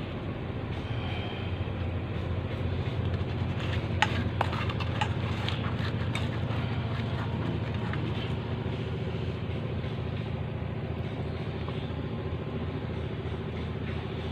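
A steady low engine-like hum, with a few light clicks, the sharpest about four seconds in.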